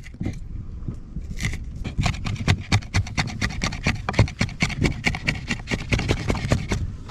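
Knife chopping Thai chilies and fresh herbs on a cutting board: quick, repeated strokes, several a second, getting denser about a second and a half in.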